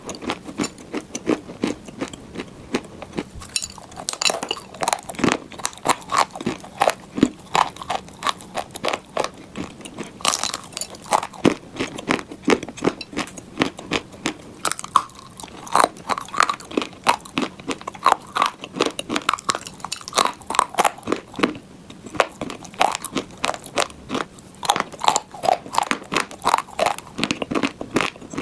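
Dry clay being bitten and chewed: a dense run of sharp, crackly crunches, several a second.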